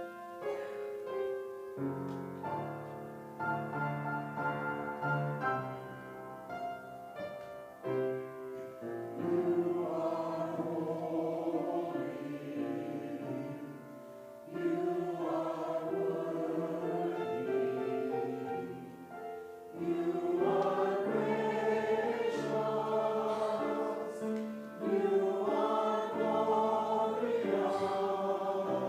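Church choir singing in sustained chords, phrase after phrase, growing louder about halfway through and again later.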